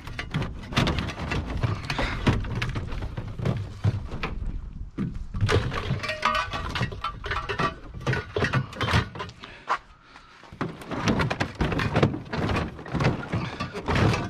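Aluminium tubes and crutches clanking and rattling against each other as scrap is shifted by hand in a pickup tray, with thunks as a plastic portable air conditioner is pushed about. A short lull about ten seconds in.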